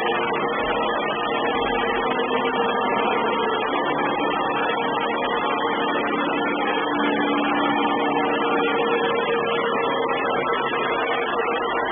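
Samsung robot vacuum cleaner running steadily, its motor and brush hum harsh and distorted through the camera's microphone. A second, lower hum tone comes in for several seconds midway.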